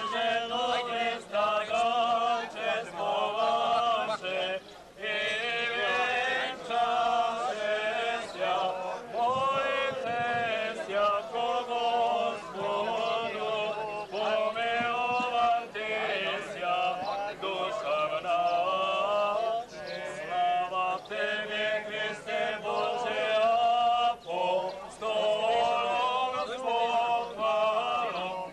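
Men's voices singing an Orthodox church chant, continuous with short breaths between phrases, while the slava bread is held and turned.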